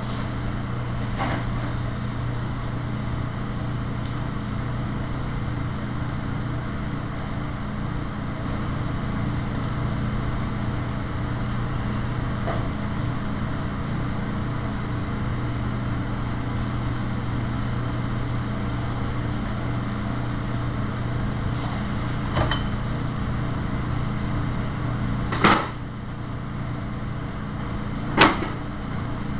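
Steady hum of a commercial kitchen's exhaust hood fan and range, with three sharp clanks of pans on the range in the last seven seconds, the middle one loudest.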